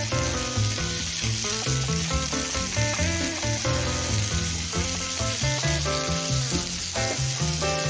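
Snow peas and chicken breast sizzling in a nonstick frying pan as they are stir-fried with a spatula, under background music with a steady beat.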